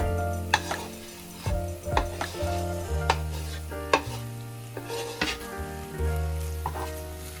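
Food sizzling in a frying pan as it is stirred, with a utensil clicking sharply against the pan several times, over soft background music.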